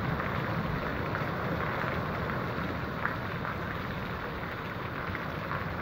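Heavy rain pouring steadily onto a flooded street and tiled pavement, an even downpour with a brief sharp tap about three seconds in.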